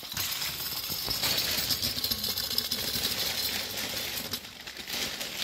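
Clockwork tin duck toy running on a tabletop: its wound-up spring mechanism whirs with a fast, even clatter of tiny ticks.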